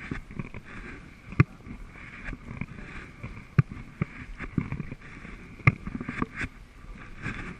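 Sea kayak being paddled: water washing around the hull with a sharp knock about every two seconds in time with the strokes, and smaller knocks between them.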